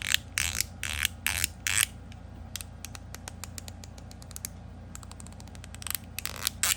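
All-steel fidget slider with spring-loaded 3 mm ball detents and an Ultem ZZ plate, snapped back and forth by hand: sharp, low-pitched haptic clicks. There is a run of clicks in the first two seconds, a few soft ticks in the middle, and a quick flurry of clicks near the end.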